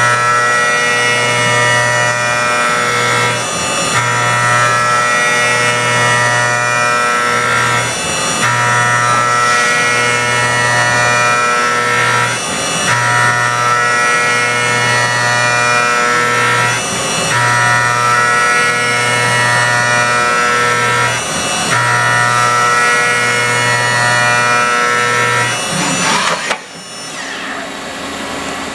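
Haas OM-2A CNC vertical mill machining a metal part: a steady high-pitched spindle whine over a low hum, broken briefly about every four seconds as each pass ends. Near the end the cutting stops and the sound drops to a quieter hum.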